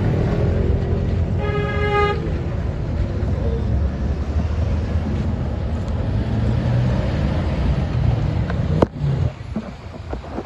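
Street traffic rumbling steadily, with one car horn toot lasting under a second about a second and a half in. A sharp knock comes near the end, and the sound is quieter after it.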